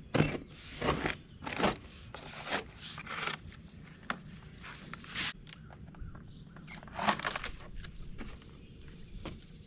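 A series of irregular scrapes and knocks from hands-on work, with the loudest near the start and about seven seconds in.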